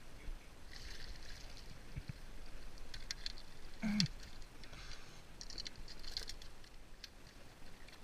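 Water splashing in spells as a walleye thrashes in a landing net at the side of a boat, with one louder sudden sound about four seconds in as the fish is lifted.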